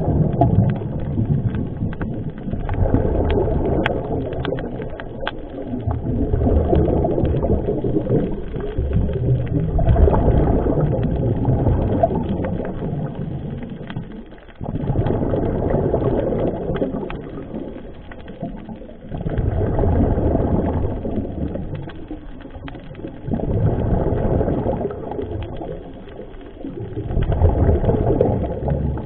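A scuba diver breathing through a regulator underwater: low bubbling and rushing swells, each rising and fading, every few seconds.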